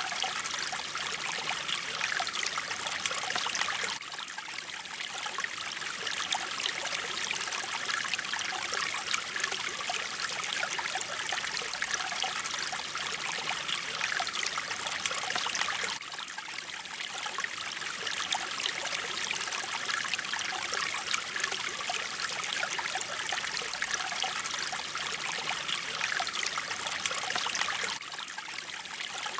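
Mountain stream water flowing and trickling steadily. It drops briefly a little softer about every twelve seconds.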